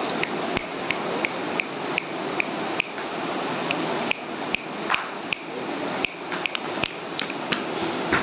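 Light, regular ticking or tapping, about two and a half strokes a second, over a steady rushing hiss.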